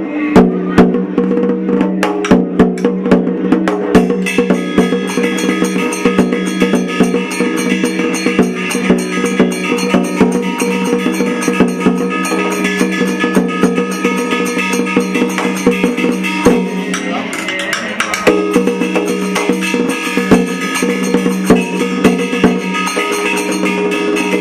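Traditional Vietnamese funeral music: a sustained pitched melody over quick wood-block clacks and drum strikes, the strikes densest in the first few seconds.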